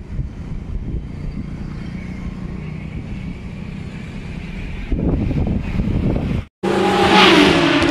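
Low outdoor rumble with wind on the microphone, getting louder about five seconds in. Near the end the sound cuts out for a moment and a logo sting starts: a loud whoosh with sweeping, falling tones.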